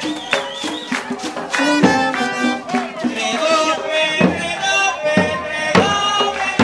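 Live traditional Colombian folk music from a parade troupe: hand drums beating under a wavering pitched melody.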